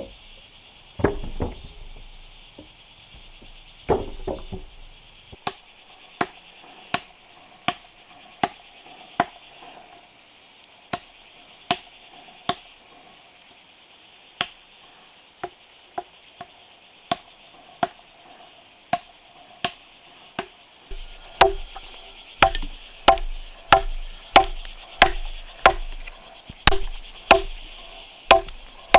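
Hand-tool woodworking or forging blows: two heavier thuds, then a steady run of sharp strikes about one and a half a second, quickening to about two a second near the end. A steady high hiss runs underneath.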